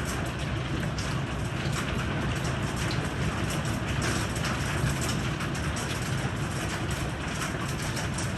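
Heavy rain pouring steadily, with many small sharp ticks of drops striking hard surfaces.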